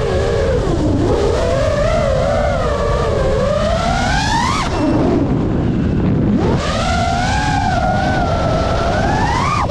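FPV quadcopter's brushless motors whining, the pitch wavering and climbing as the throttle opens, then dropping sharply about four and a half seconds in and again at the end as the throttle is cut. A steady rush of air noise runs underneath.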